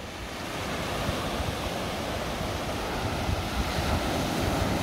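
Small waves breaking and washing up a sandy beach in a steady surf wash, with wind rumbling on the microphone.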